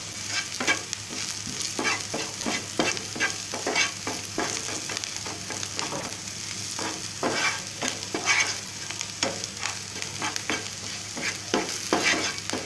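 Green chillies and garlic sizzling in oil in a nonstick frying pan, with a wooden spatula scraping and knocking against the pan in repeated, irregular stirring strokes.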